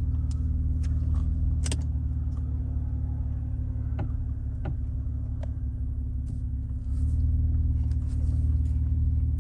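Acura RL's 3.5-litre V6 running at low speed as the car reverses: a steady low hum heard from inside the cabin, growing louder about seven seconds in. A few light clicks sound over it.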